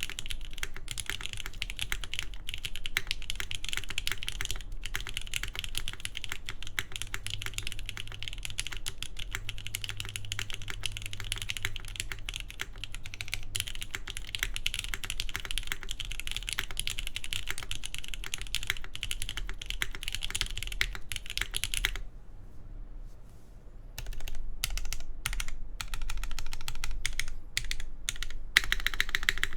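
Continuous fast typing on a gasket-mounted Keybay Tech The Base mechanical keyboard with lubed Gateron Milky Top Yellow linear switches, GMK keycaps and a full polycarbonate plate. The typing stops for about two seconds near the end, then picks up again with scattered keystrokes.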